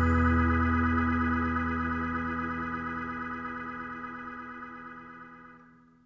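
Background music ending on a single held chord that fades slowly away, dying out to silence near the end.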